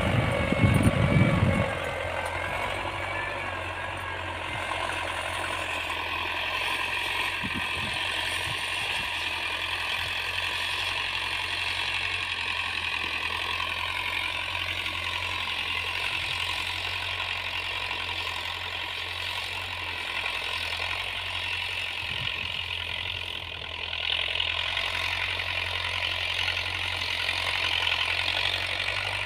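John Deere tractor's diesel engine running steadily under load while pulling a tine cultivator through the field, heard from a distance. A louder low rumble in the first second or so.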